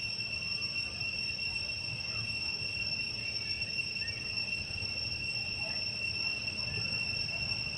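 Insects droning in a steady, unbroken high-pitched chorus, over a faint low rumble.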